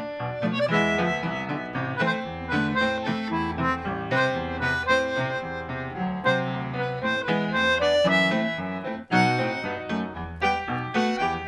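A JAY Tritone concertina, a 3D-printed free-reed instrument, playing a lively tune of quick notes over a Yamaha U3 upright piano.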